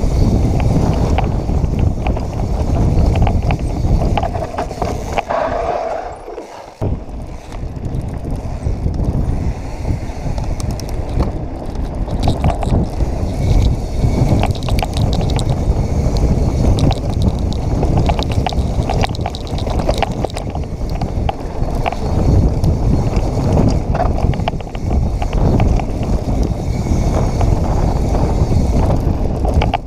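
Santa Cruz Hightower mountain bike riding a rough dirt trail: wind rushing over the action-camera microphone, with constant tyre crunch and frequent rattles and clacks from the bike over rocks and ruts. It goes quieter for a moment about six seconds in, then picks back up.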